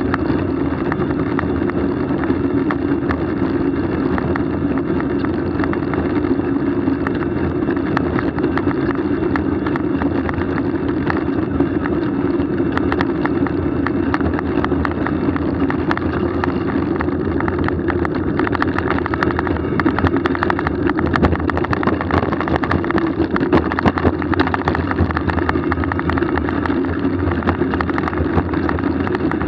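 Steady rushing wind and tyre noise from a moving ride, with frequent small knocks and rattles.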